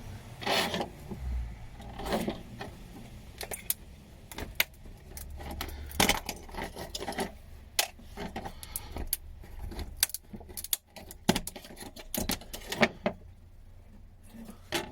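Irregular clicking and clattering with light metallic jingling, the sound of scrap circuit boards and small parts being handled on a workbench, over a low steady hum.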